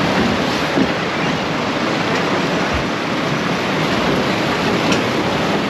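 Steady rushing noise of a moving tractor ride, mostly wind on the microphone, with no clear engine note.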